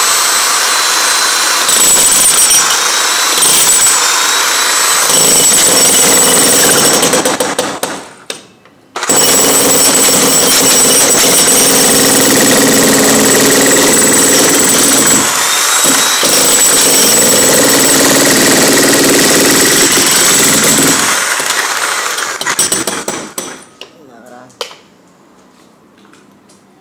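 Electric demolition hammer with a chisel bit breaking up a concrete floor, hammering steadily. It stops for about a second roughly a third of the way in, starts again, and stops a few seconds before the end, leaving only a few small knocks.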